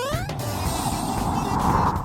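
Background music with an added whoosh sound effect: a quick rising sweep at the start, then a rushing noise that swells to its loudest near the end.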